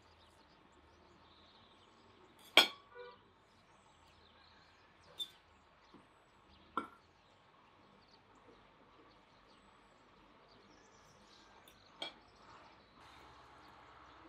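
A fork clinking against a plate a few times with quiet between, the loudest clink about two and a half seconds in.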